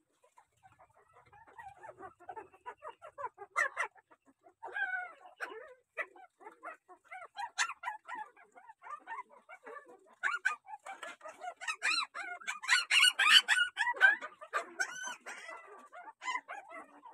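A young puppy whining and yelping over and over as it is held and picked over for lice, the cries coming thicker and louder past the middle.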